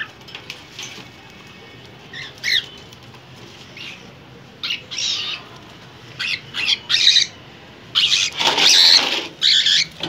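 A cockatiel being caught by a gloved hand inside a small wire cage: wings flapping against the bars, with short harsh calls, scattered at first and much louder and more frequent toward the end as the bird is grabbed.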